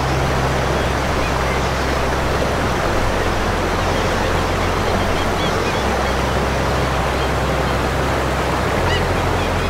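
A steady, even rushing noise, with low held bass notes underneath that change about every three seconds, and a few faint short high chirps near the end.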